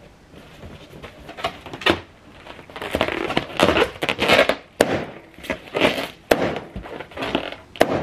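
Latex party balloons being pulled down and handled: rubber rubbing and squeaking in irregular bursts, with three sharp snaps in the second half as the balloons are cut and emptied.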